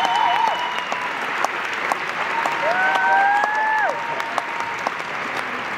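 Audience applauding, with a high pitched whoop over the clapping about three seconds in that drops away at its end.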